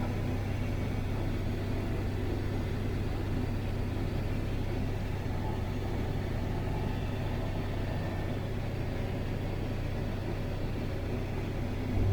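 Combine harvester running steadily while harvesting corn: an even, continuous low drone.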